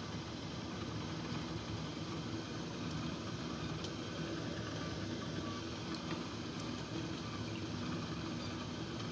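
Steady rumble and hiss of a large steamer pot boiling hard over a gas flame, with a few faint clicks.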